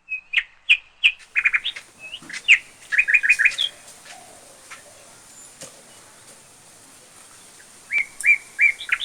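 Bird chirping in quick groups of short, high notes, falling quiet for a few seconds in the middle and starting again near the end.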